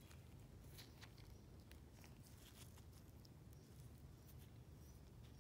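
Near silence: a low steady room hum with a few faint, brief clicks from a gloved hand handling a small piece of cured clay on a bench.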